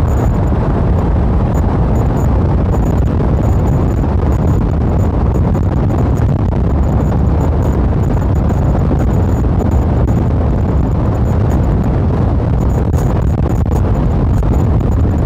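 Steady, heavy wind rush buffeting a microphone tucked inside a rider's jacket while riding an electric motorcycle at high speed, near 67 mph. The sound is a low, muffled rumble of air with no motor sound.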